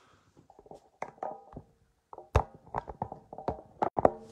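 A quick run of handling knocks, taps and clunks from hard objects being picked up and set down on a tabletop, several with a brief ringing tone. The loudest knocks come about two and a half seconds in and again near the end.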